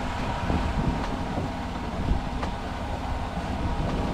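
Fishing boat's engine running steadily with a low rumble, with a few light knocks over it.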